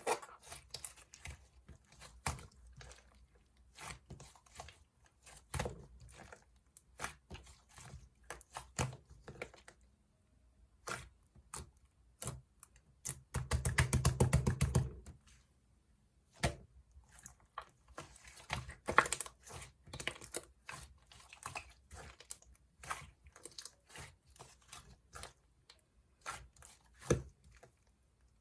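Two-layer clay slime being pressed, stretched and folded by hand, giving irregular sticky clicks and little air-bubble pops. About halfway through comes a denser burst of crackling pops lasting a second or two.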